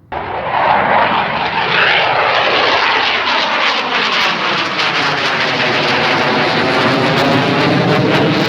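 Aircraft flying low overhead: a loud, steady rushing noise with a slowly sweeping hollow tone, starting and stopping abruptly.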